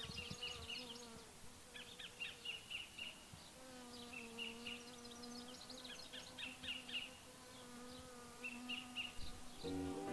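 Faint, steady buzzing of a bee that drops in pitch about three and a half seconds in, with repeated high bird chirps over it. Music starts just before the end.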